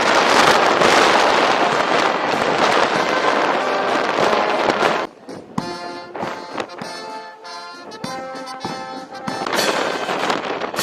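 A dense, noisy crackle that cuts off suddenly about halfway through, followed by music.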